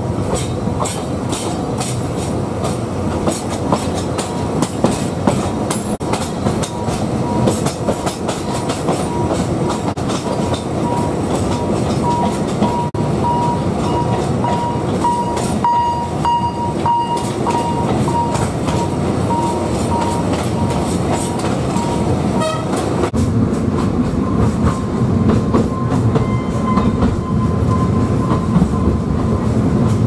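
Narrow-gauge Alishan Forest Railway train running, heard from aboard: a steady rumble of wheels on rail with frequent rail clicks. A thin high squeal holds through much of the middle and comes back near the end.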